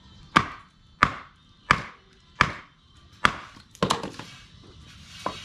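Wooden baton pounding on a large camp knife (Dark Timber Devil's Horn) to drive it through a log and split it: six sharp knocks about two-thirds of a second apart, the fifth doubled, then a lighter knock near the end.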